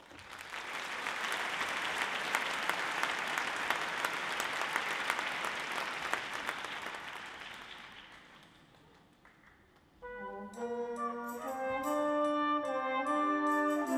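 Audience applauding for about eight seconds, then dying away. About ten seconds in, a wind band starts to play, with brass holding chords that build in loudness.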